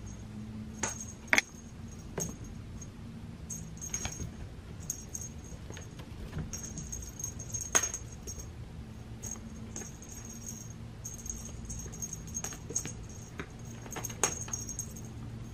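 A cat toy jingling on and off, with sharp taps and clicks as a cat bats at a wand toy swung over a scratcher; a few taps are louder.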